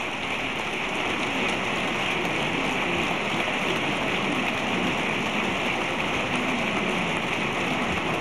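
Large crowd applauding, a dense steady patter of many hands clapping that swells in the first second and then holds steady.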